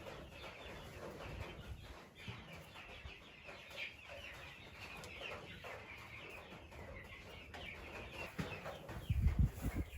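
Chickens clucking and chattering, with a brief low rumble about a second before the end.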